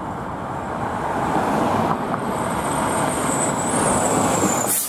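Fire department tiller ladder truck driving past, its diesel engine and tyres making a steady rush of road noise that grows louder as it comes close.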